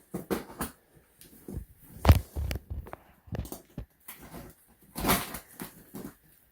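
A large cardboard shipping box being handled and opened: irregular knocks, scrapes and rustles of cardboard, with a heavier thump about two seconds in and a longer scraping rustle about five seconds in.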